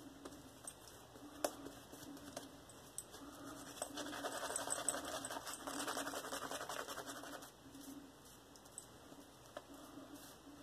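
Shaving brush working lather, a soft scratchy swishing with a few small clicks. It is louder and busier for about three and a half seconds in the middle.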